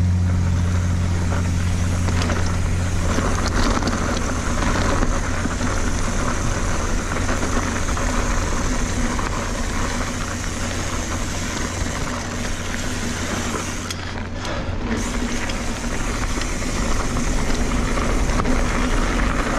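2017 Kona Honzo hardtail mountain bike rolling fast down a dirt trail: steady tyre noise over dirt and leaves with wind rushing on the chest-mounted microphone and occasional knocks over bumps. A plate compactor's engine hum fades out over the first few seconds.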